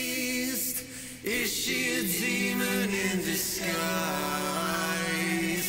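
Layered male vocal harmonies played back from a multitrack session: several voices singing together in close harmony, breaking off briefly about a second in and then holding a long sustained chord. The harmony stack is dry, with no octave vocals or effects on it.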